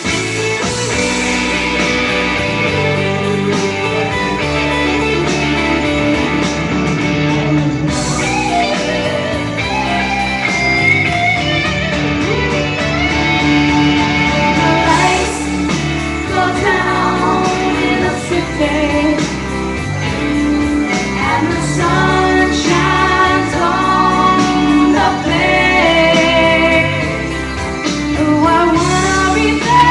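A woman singing over loud backing music with guitar, the vocal line most prominent in the second half.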